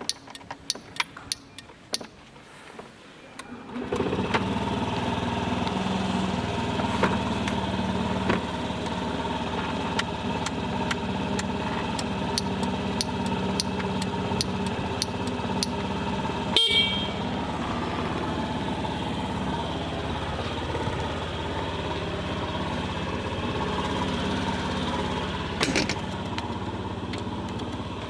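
A Honda Gyro Canopy's single-cylinder four-stroke scooter engine: a run of sharp clicks, then it starts about four seconds in and settles into a steady idle. A short sharp sound cuts in about two-thirds of the way through.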